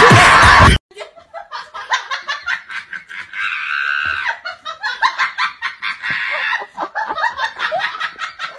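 A person laughing over and over in quick, short ha-has, after a loud sound that cuts off just under a second in.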